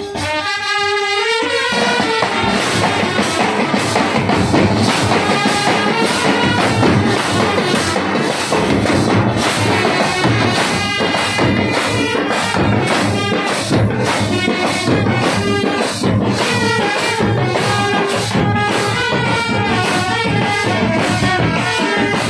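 A South Indian village brass band playing: trumpets carry the tune over a battery of bass drums, side drums and steel-shelled drums. A lone melody sounds for the first two seconds, then the drums come in with fast, steady strokes.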